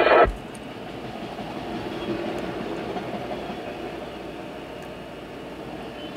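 Freight train of autorack cars rolling steadily past, the wheels on the rails heard from inside a car. Just after the start, a louder sound with a steady pitch cuts off suddenly.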